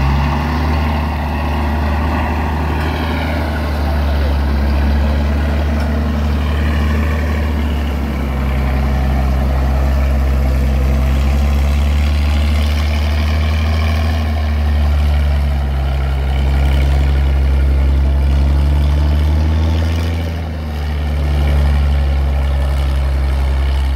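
Engine of a homemade Vietnamese hauling truck (xe độ) running steadily under load as it climbs a slippery mud slope: a deep, continuous engine note that swells and eases slightly.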